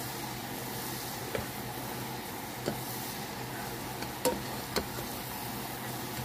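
Butter and chocolate sizzling as they melt in a saucepan, stirred with a silicone spatula, with about four light taps of the spatula against the pan.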